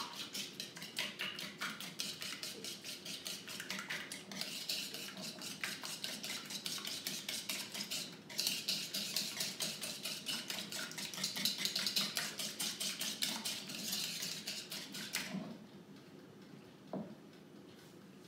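Hand whisk beating eggs and cream into a liver-powder batter, clicking quickly and regularly against the side of a mixing bowl. There is a short break about eight seconds in, and the beating stops about fifteen seconds in, followed by a single light knock.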